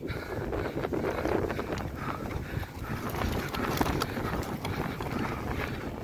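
Mountain bike ridden over rough, muddy ground: the bike rattling with many irregular clicks and knocks, over a low rumble of wind on the microphone.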